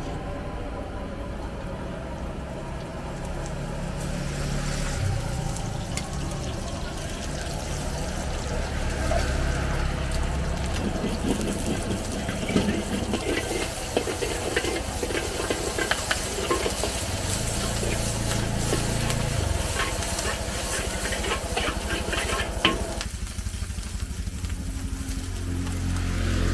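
Eggs and vegetables sizzling in a hot wok over a gas burner, with a metal spatula repeatedly scraping and clattering against the wok, most busily through the middle. A steady low rumble runs underneath.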